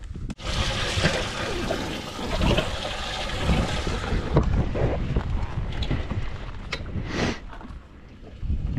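Steady rush and splash of water in a bass boat's livewell as the hatch is opened to put a bass in, with wind buffeting the microphone. It fades near the end.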